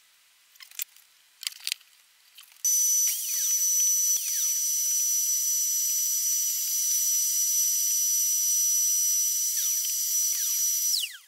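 A few light clicks, then a loud, steady high-pitched whine from a small motor that starts about two and a half seconds in and runs for several seconds, its pitch dropping away as it stops near the end.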